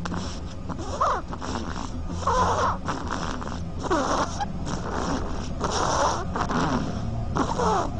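Duckling snoring in its sleep: a short squeaky, pitch-bending sound with each breath, repeating about every one and a half to two seconds, over a steady low hum.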